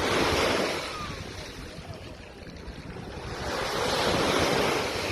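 Sea waves breaking and washing up the beach, two surges of surf about three and a half seconds apart, with wind rumbling on the microphone.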